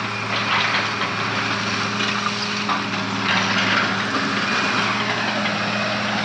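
Diesel engines of heavy demolition machinery running steadily, a constant low hum under a broad mechanical noise.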